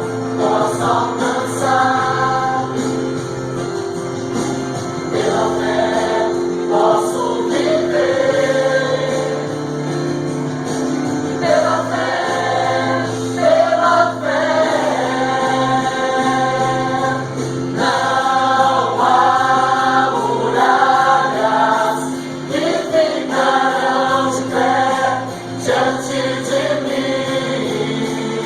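Gospel song with a choir singing over sustained chords and a bass line.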